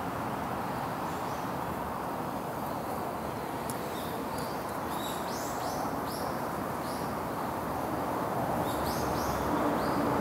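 River water flowing steadily, with a small bird's short, high chirps in two runs: a few seconds in and again near the end.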